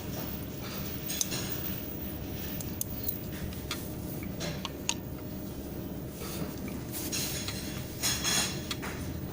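Scattered metal clinks and then a brief louder clatter of metal tools or parts, over a steady low hum.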